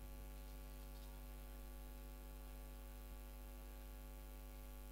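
Steady low electrical mains hum from the sound system, unchanging throughout.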